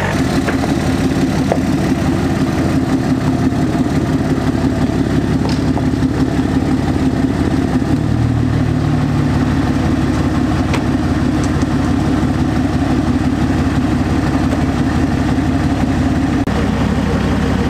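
Excavator engine running steadily at an even speed, with a dense low pulse.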